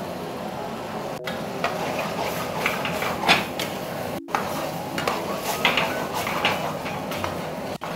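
A metal ladle clinking and scraping in a frying pan as a chicken-and-cashew curry sauce is stirred, with many short irregular knocks over a steady hiss.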